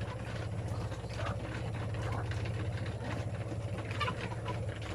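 A steady, low, engine-like hum with a fine pulsing rhythm, with chickens clucking faintly over it.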